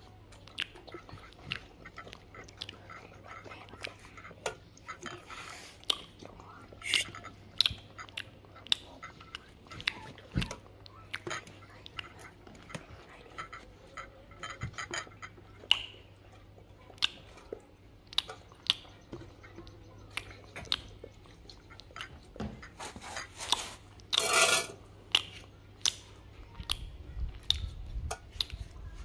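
Dog eating from a steel pot: irregular chewing and biting with many short, sharp clicks as it takes pieces of chicken and rice noodles. About three-quarters of the way through there is one louder noisy burst lasting under a second.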